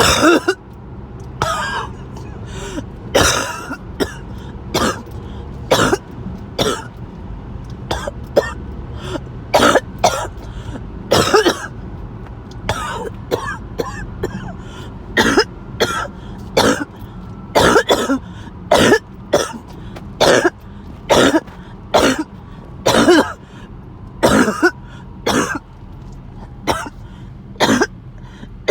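A person's harsh coughing fit: about thirty short coughs in quick succession, mostly one or two a second, with brief pauses between groups.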